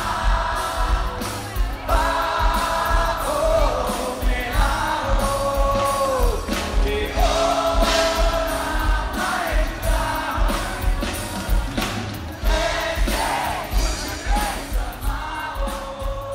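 Live band music with a singer's voice carrying the melody over a steady drum beat.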